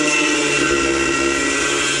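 Corded electric grinder running under load against a metal bumper bracket, grinding away a small weld so the bracket will sit flush. A steady, loud whine with several tones.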